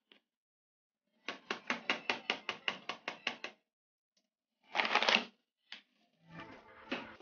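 Metal mesh flour sieve tapped quickly and evenly, about six taps a second for a couple of seconds, to shake flour through into a plastic bowl. This is followed by a short scrape or clatter and a click as the sieve is handled and set aside.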